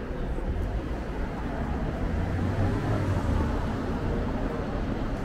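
City street traffic: a low vehicle rumble that swells in the middle, over steady street noise.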